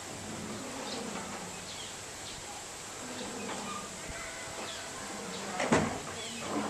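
Sun bear handling a green plastic tray, with a sharp knock of the plastic about six seconds in as the tray is pushed against the wall. Faint short chirps sound in the background.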